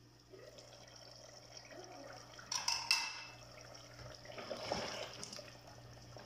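Aluminium pot lid lifted off a simmering mutton curry and set down with a metallic clink about two and a half seconds in, then a ladle stirring wetly through the thick, reduced gravy in the aluminium pot.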